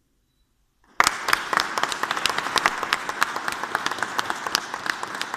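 About a second of silence, then an audience breaks into applause, many hands clapping steadily.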